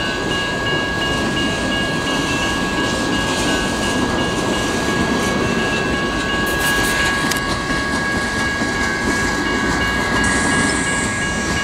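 Freight cars rolling past at a grade crossing, their wheels rumbling and clacking over the rails. The crossing's General Signals electronic bells ring steadily over it, one a continuous tone and one pulsing.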